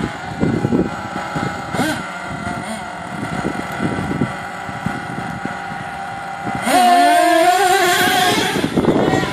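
Small nitro engine of an HPI Savage X RC monster truck revving up and down in quick blips. About seven seconds in it gets louder and is held at high revs at full throttle for about two seconds.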